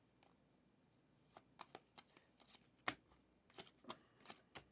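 Faint, sparse clicks and flicks of football trading cards being handled and flipped through, about a dozen small taps with the sharpest about three seconds in.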